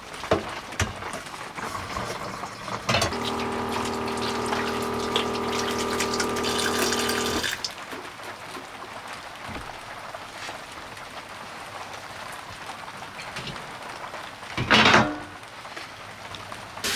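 Water running into a container for about four seconds with a steady hum, cutting off sharply. A brief louder noise comes near the end.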